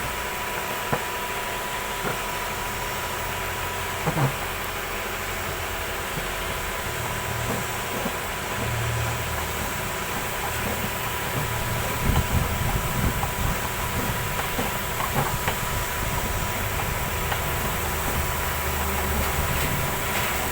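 Steady mechanical noise with a hiss, a faint steady tone and a low hum, broken by a few light knocks, around 4 seconds in and again about 12 seconds in.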